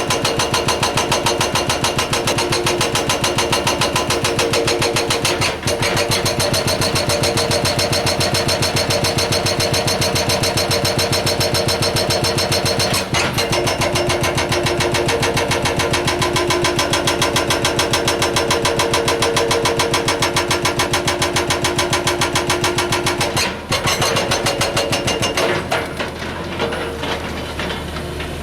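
Excavator-mounted hydraulic breaker hammering rock in a rapid, steady run of blows over the excavator's running engine, breaking off briefly three times. Near the end the hammering stops and the engine runs on.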